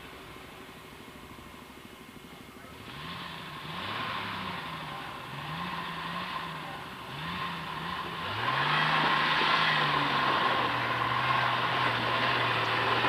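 Jeep engine working its way up a rocky off-road climb, revving up and dropping back several times, then getting louder about eight seconds in and holding a steady note under load.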